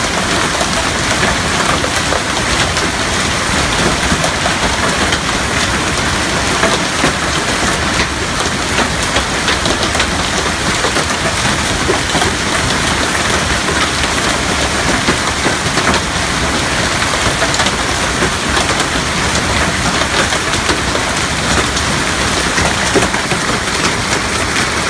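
Golf-ball-size hail falling hard, a steady dense clatter of countless small impacts.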